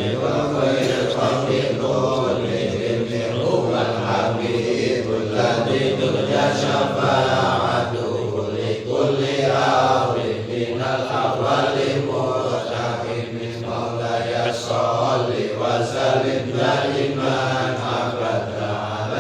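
Group of men chanting an Islamic prayer recitation (dzikir) together in unison, a steady low drone of many voices with no pauses.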